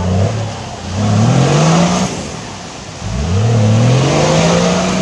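Off-road 4x4 engine revving hard twice, each surge rising steeply in pitch and then holding high, over a broad hiss.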